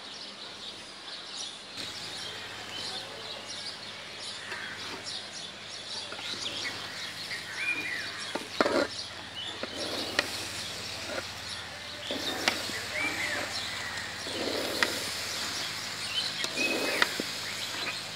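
Metal spatula scraping and knocking against a large metal cooking pan as rice and chickpeas are stirred and turned, in irregular strokes. Birds chirp a few times in the background.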